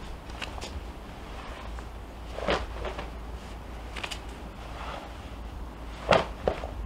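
Short scuffs and swishes from a barefoot karate practitioner working through a kata on a stone path: feet stepping and the gi moving with each technique. There are about six of them, spread unevenly, over a low steady rumble.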